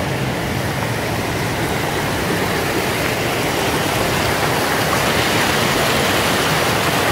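Mountain creek rushing over rock cascades: a steady, loud rush of water that grows slightly louder.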